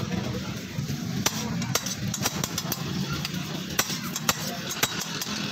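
Metal spatula striking and scraping a steel flat-top griddle, about ten sharp clinks at irregular intervals, over a steady low rumble.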